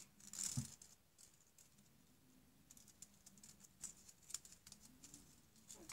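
Faint rustling and crinkling of a thin paper strip being folded by hand into a paper star: a short rustle about half a second in, then scattered small paper ticks and clicks.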